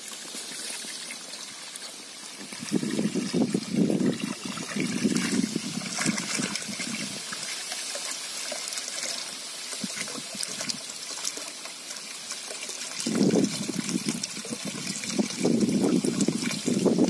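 Water poured from a plastic bucket into a pond, splashing and trickling at the surface as carp fingerlings are tipped out with it. The pouring grows louder from about three seconds in and again near the end.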